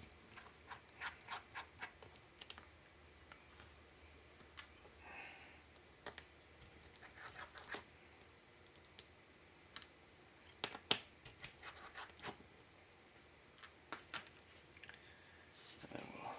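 Faint, irregular small clicks and ticks of a precision screwdriver and tiny screws being worked out of a MacBook Air's hinges, in scattered clusters.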